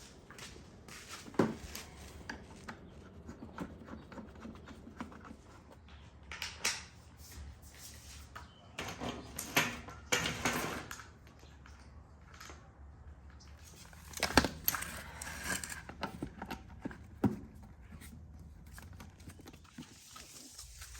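Plastic parts of an electric pressure washer being handled and clicked together during assembly: scattered clicks, knocks and rustling, with a sharper knock about a second and a half in and another around fourteen seconds in.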